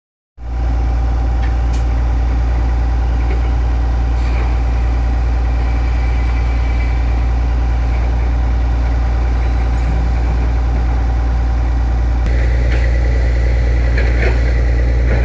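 Hindustan wheel loader's diesel engine running steadily, a loud low hum with a steady whine above it. About twelve seconds in, the sound shifts and gets slightly louder.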